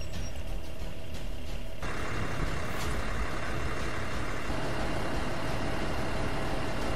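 Steady rumble of idling vehicle engines with an even background hiss; the sound changes abruptly about two seconds in.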